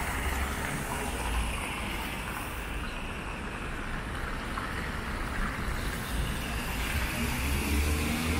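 City road traffic passing on wet asphalt: a steady hiss of tyres on the wet road, with a deeper engine rumble that swells near the start and again towards the end.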